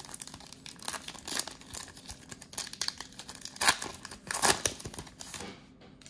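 Plastic wrapper of a Mosaic basketball cello pack being torn open and crinkled by hand: a dense crackling with two louder crackles near the middle, dying down about five and a half seconds in.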